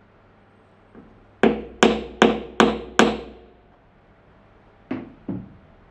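Five sharp hammer blows on wood about 0.4 s apart, each with a short ring, followed near the end by two lighter taps.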